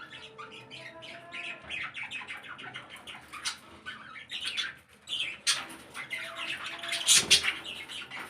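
Many caged pet birds, budgerigars among them, chattering with rapid overlapping chirps, broken by loud squawks about seven seconds in.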